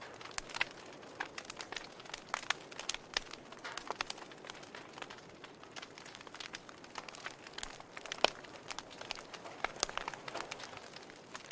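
Fire in a fireplace crackling: irregular sharp pops and snaps over a soft steady hiss, with one louder pop a little past the middle.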